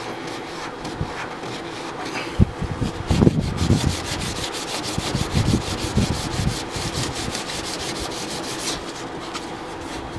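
800-grit sandpaper rubbed by hand in quick, even back-and-forth strokes over a metal badge on an aluminum canoe hull, scrubbing off paint softened by paint stripper. There are a few dull knocks around three seconds in, and the strokes stop shortly before the end.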